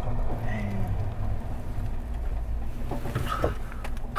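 Low steady rumble of a vehicle's engine, heard from inside the cab with the window down, with a few faint clicks near the end.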